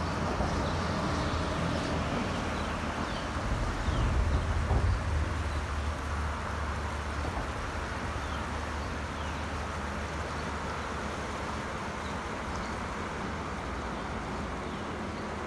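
Steady rushing of the flooded Arkansas River's fast, turbulent water, under a low rumble that swells about four seconds in and then eases. A few faint high chirps sound in the first four seconds.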